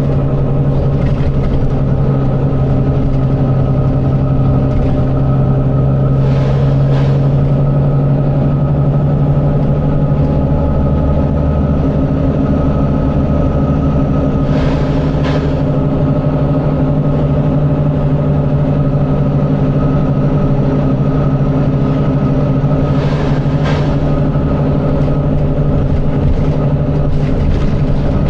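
Volvo B9TL bus's six-cylinder diesel engine running at a steady pitch, with three short hisses: about a quarter of the way in, just past halfway and near the end.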